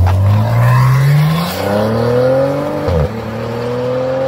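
Car engine accelerating hard, its pitch climbing steadily, dropping briefly at an upshift about three seconds in, then climbing again.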